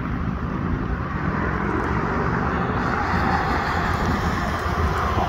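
Freight train of tank cars rolling past at a distance: a steady low rumble, with a hiss that grows louder about two seconds in.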